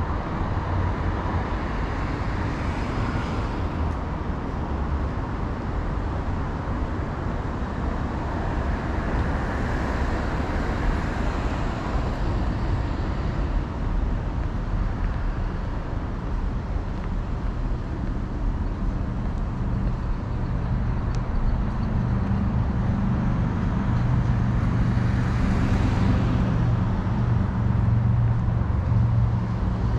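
Road traffic passing along a city street: a steady wash of car and tyre noise with vehicles swelling past now and then. A heavier vehicle's low engine rumble builds over the last third.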